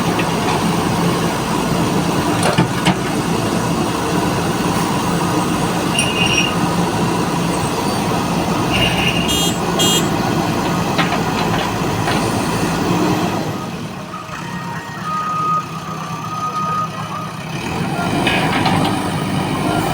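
Heavy diesel engine of a JCB 4DX backhoe loader running hard under load. It eases off for a few seconds about two-thirds of the way through, with two short beeps, then picks up again.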